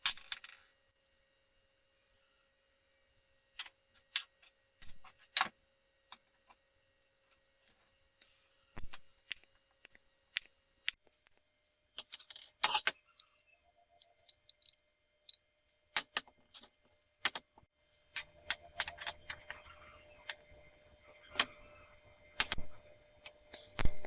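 Steel parts and tools clinking and knocking as they are handled on a workbench: scattered sharp metallic clicks at irregular intervals, with a faint hum early on, and faint steady noise under the clinks in the last quarter.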